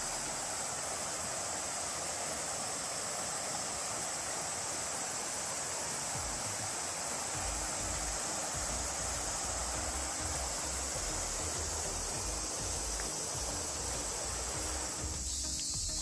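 Steady rush of flowing water. About a second before the end it cuts off abruptly, leaving a high chirring of insects.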